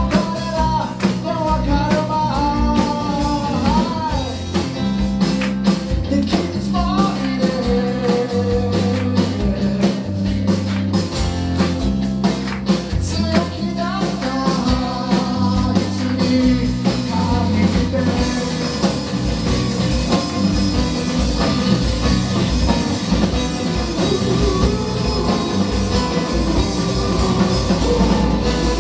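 A live rock band playing: a male singer with acoustic guitar, backed by bass, a second acoustic guitar, electric guitar and drums. The singing drops out about two-thirds of the way through and the band plays on.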